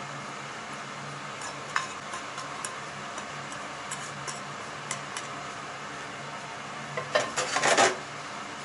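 Metal tongs clicking and scraping against a frying pan and a ceramic plate as spaghetti is plated, with a short clatter of several knocks near the end. A steady low hum underneath.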